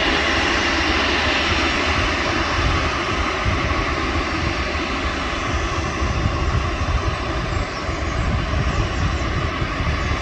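Jet airliner's engines running at takeoff power: a loud, steady roar that eases off slightly over the last few seconds.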